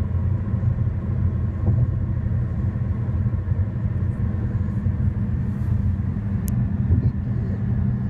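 Car cabin noise while driving at highway speed: a steady low rumble of road, tyre and engine noise, with one sharp click late on.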